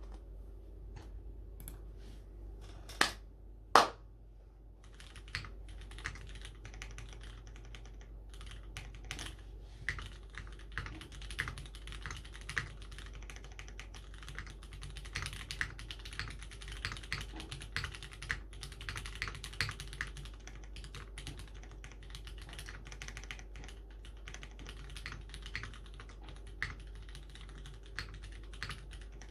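Mechanical keyboard with Cherry MX Black linear switches on an aluminium plate and GMK ABS keycaps, typed on in fast, steady runs of keystrokes from about five seconds in. Before that come a few scattered key clicks and two sharp, loud knocks about three seconds in.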